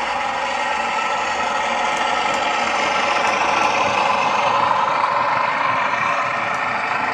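Class 42 Warship diesel-hydraulic locomotive engine sound from a DCC sound decoder, played through a model locomotive's small tablet speaker: the twin diesel engines running steadily, a little louder about halfway through, with little bass.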